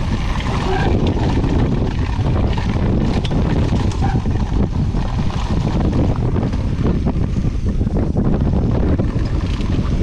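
Wind rushing over the camera microphone and mountain-bike tyres rolling fast over a dry dirt and gravel trail, with frequent small knocks and rattles from the bike over the rough ground.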